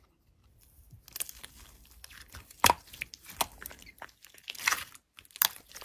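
Slime being played with by hand: an irregular run of crunchy clicks and crackles, a few sharper snaps standing out.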